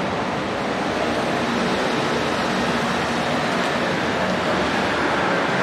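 Busy city street ambience: a steady wash of road traffic from passing vehicles, with a low engine hum underneath.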